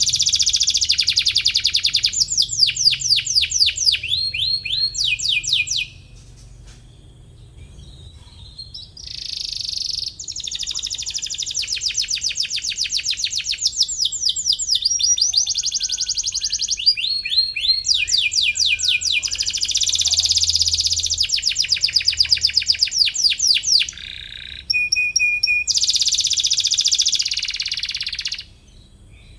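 Domestic canary singing in long rapid trills of high chirping notes, phrase after phrase, with a pause of a few seconds about six seconds in.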